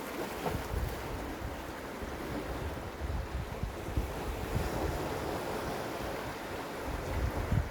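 Sea waves washing against rocks on the shore, a steady surf wash, with low gusts of wind buffeting the microphone.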